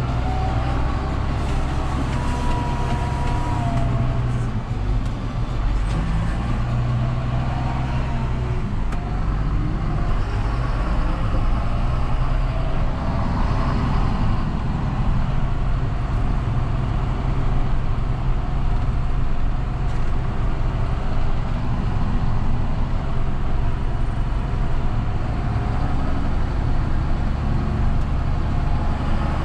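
John Deere 6930 tractor's six-cylinder diesel engine running steadily under load while it pulls a Väderstad Cultus cultivator.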